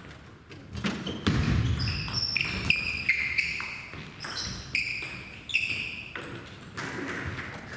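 Table tennis rally: the ball clicking off bats and table, with shoes squeaking briefly on the sports-hall floor as the players move.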